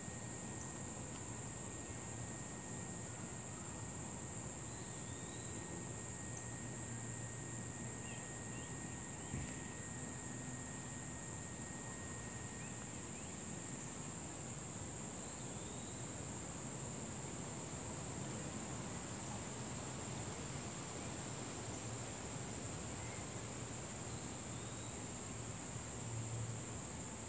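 A steady, unbroken high-pitched trill from a chorus of insects such as crickets. A fainter, lower steady tone runs beneath it and stops about halfway through.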